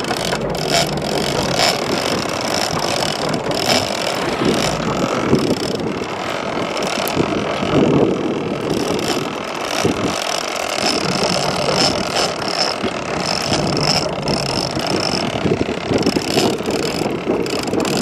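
Boat engine running steadily, with wind buffeting the microphone and an on-and-off high whine over the top.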